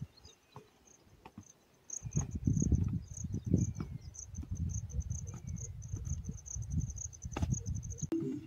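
Crickets chirping in a steady run of rapid, high-pitched pulses. From about two seconds in there is a louder, uneven low rumble, and both stop suddenly near the end.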